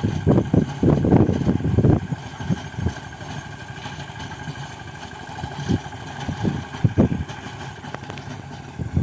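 Mahindra Yuvraj mini tractor's diesel engine running steadily as it drives a rotavator through dry soil. Wind buffets the microphone in low gusty rumbles, heaviest in the first two seconds and again about seven seconds in.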